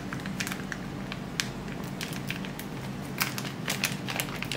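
Irregular crinkling and clicking from audio cables and their plastic packaging being handled, over a steady low hum.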